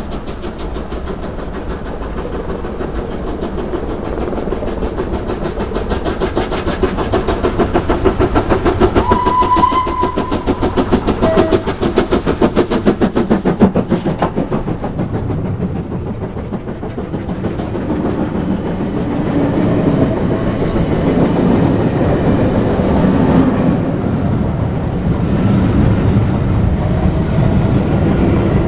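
LNER B1 steam locomotive 61306 Mayflower passing close by, its sound building over several seconds to a rapid, regular beat, with a brief high tone about nine seconds in. Its train of coaches then rolls past with a heavy rumble and the wheels clattering over the rail joints.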